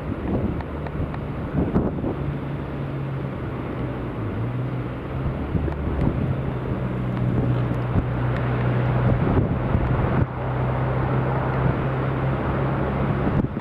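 Gale-force storm wind blasting the microphone over heavy surf breaking on a sea wall, with a steady low hum underneath and occasional louder gusts.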